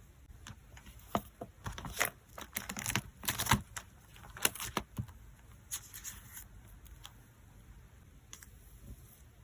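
Photocards in plastic sleeves and packing materials being handled: a quick flurry of crisp taps, clicks and crinkles for the first six seconds or so, then only one or two faint ones.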